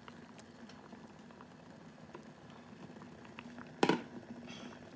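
Fish-and-shrimp sinigang broth bubbling at a boil in a steel pot, with small scattered pops over a faint steady hum. One sharp clack stands out just before the end.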